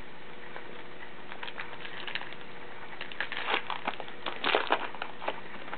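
Crinkling and rustling of a trading-card pack wrapper and cards being handled: a run of short, irregular crackles, densest near the middle and later part, over faint room hiss.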